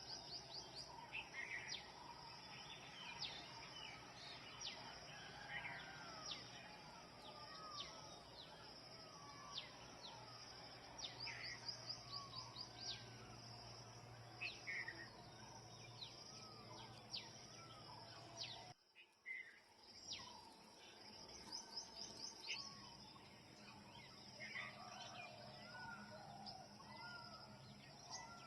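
Dawn chorus of many wild birds: short chirps, swooping whistles and rapid high trills from several birds at once over a steady background hum. The sound cuts out briefly about two-thirds of the way through.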